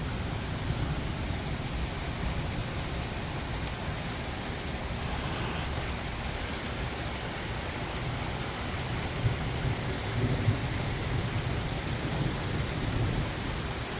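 Heavy rain pouring steadily, with a low rumble of thunder rolling through in the second half.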